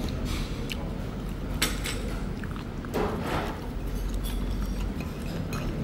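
Eating sounds: a few irregular chewing and mouth noises with light knocks of utensils on dishes, the biggest about three seconds in.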